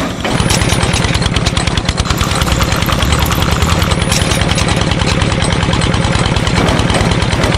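Miniature cement mixer running with a steady, rapid engine-like chugging as its drum turns and tips to pour concrete, starting about a third of a second in.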